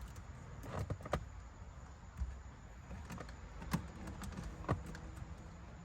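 Light, scattered plastic clicks and taps as an LED trim strip is pressed into the seams of a car's dashboard panels, a few sharp clicks spread over several seconds.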